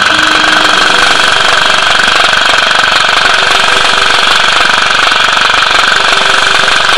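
Airsoft electric gun (AEG) firing full auto in one long, unbroken burst: a loud, fast mechanical rattle of the gearbox cycling and BBs firing.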